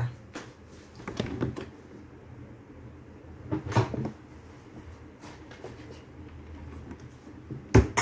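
Scattered handling knocks and bumps, a few seconds apart, with a sharp knock near the end.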